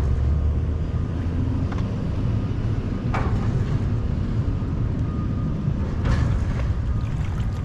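A steady low rumble, with two short bursts of noise, about three seconds in and again about six seconds in.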